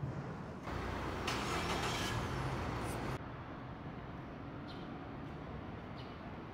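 City street traffic: a vehicle passing close, a loud rushing noise for about two and a half seconds that cuts off abruptly about three seconds in, leaving a lower steady street hum.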